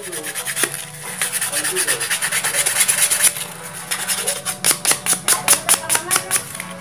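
Sandpaper rubbed back and forth over the end of a thin rod to smooth off its sharp edge. The strokes quicken in the second half to about four or five a second.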